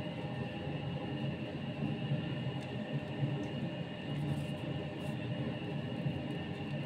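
A steady droning hum with several held tones over an even rumble, unchanging throughout, like a motor or machine running.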